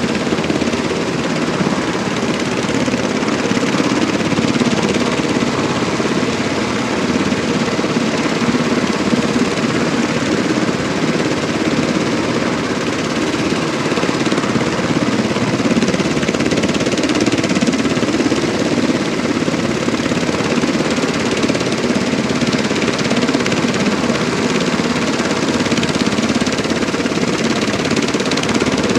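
UH-60 Black Hawk helicopter on the ground with its twin turboshaft engines running and its main and tail rotors turning: a loud, steady, rapid beating of the rotor blades over engine noise.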